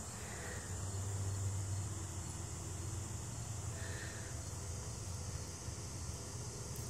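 Steady outdoor ambience: an even, high-pitched chorus of insects such as crickets, with a low rumble underneath.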